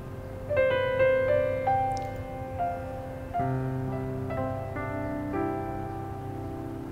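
Slow, soft piano background music: single notes entering about once a second over held chords.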